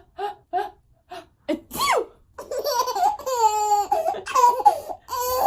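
Baby laughing: a few short giggles, then a brief fake sneeze about two seconds in, after which the baby breaks into almost continuous high-pitched belly laughter with a long squeal.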